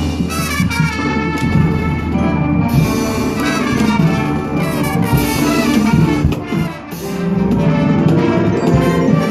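Marching band playing, brass-led with trumpets and trombones sustaining full chords over low brass and percussion. The sound thins briefly about two-thirds of the way through, then swells back.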